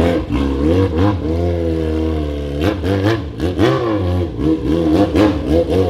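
Yamaha XJ6's inline-four engine, warming up with a loud exhaust: it runs steadily for a couple of seconds, then is revved in a series of quick throttle blips that rise and fall in pitch.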